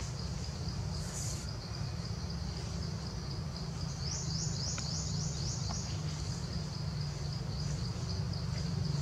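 Forest insects droning steadily at a high pitch, with a quick run of about eight short rising chirps a little after halfway, over a low steady rumble.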